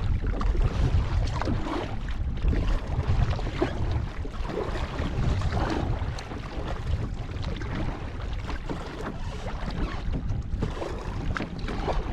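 Wind buffeting the microphone, with water splashing and lapping around a kayak on open harbour water.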